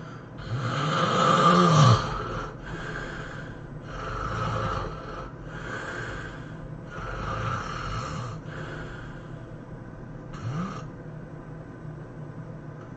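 A person snoring: first one loud snore with a buzzing pitch that rises and falls, then a run of softer, breathier snores every second or two, and after a short pause one brief snore with a rising pitch.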